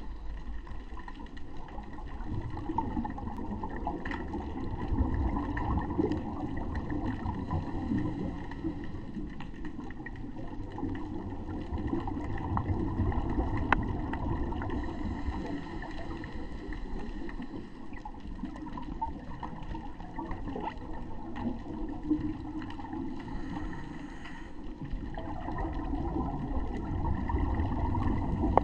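Underwater sound heard through a diving camera's housing: a continuous low rumble and gurgle of water and scuba exhaust bubbles that swells and fades, with scattered faint clicks.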